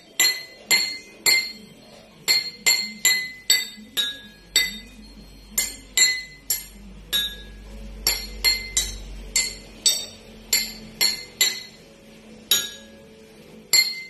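A metal spoon tapping a row of drinking glasses filled to different water levels, one clinking ring after another at about two strikes a second. Each glass rings at its own pitch, set by how much water it holds.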